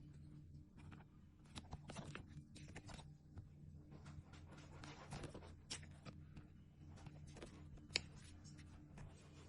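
Faint rustling and light clicks of nail-sticker sheets and their plastic packaging being handled, with one sharper click about eight seconds in, over a steady low hum.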